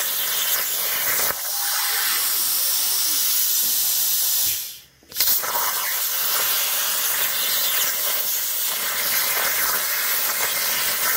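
Plasma cutter torch cutting steel plate: a steady loud hiss of the arc, which cuts out for about half a second about five seconds in and starts again abruptly.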